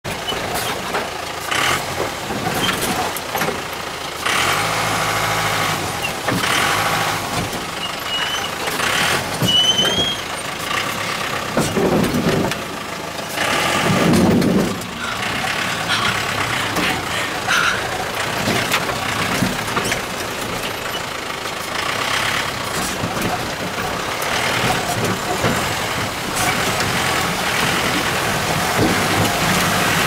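Off-road jeep driving over a rough, rocky track, heard from inside the cabin: the engine runs under a steady noise of tyres and road, with repeated clunks and rattles from the body.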